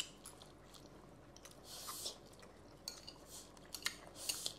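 Quiet eating sounds at a table: scattered light clicks of cutlery against dishes, with a couple of short hissing noises.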